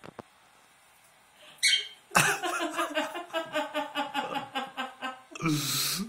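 A cockatiel's short high chirp, then a person laughing in a quick run of ha-ha pulses for about three seconds, ending in a loud breathy outburst.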